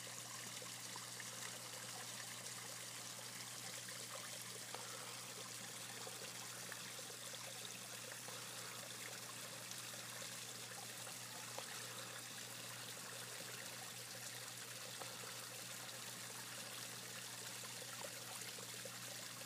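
Faint, steady trickle of water spilling into a garden koi pond from its small waterfall, with a steady low hum underneath.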